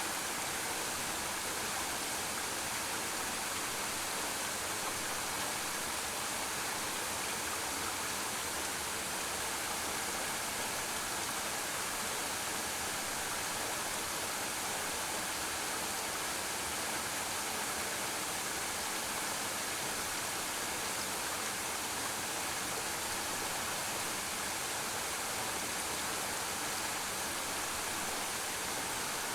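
Waterfall running: a steady, even rush of falling water with no breaks or changes.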